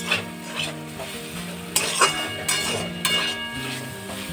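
A spatula scraping and clinking against a kadai in about six quick, irregular strokes, stirring soya chunks frying in spiced oil, with sizzling underneath. The spice mix is nearly done frying.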